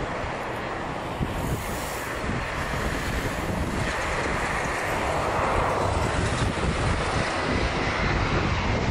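Jet airliner's engines on approach, growing louder as the plane nears, with a faint whine over the noise, mixed with wind buffeting the microphone.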